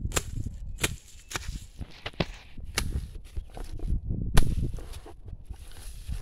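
Hand hoe chopping into hard soil and grass roots while weeding: several sharp strikes at irregular intervals, the loudest about four seconds in.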